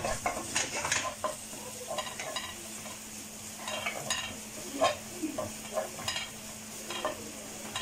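Wooden spatula stirring chopped onion and garlic sautéing in olive oil in a stainless steel pan, with irregular scrapes and taps against the pan over a light sizzle.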